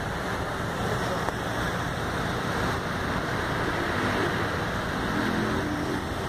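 Steady traffic noise in a jammed city street: idling cars and a continuous rushing noise, picked up by a phone held out of a car window.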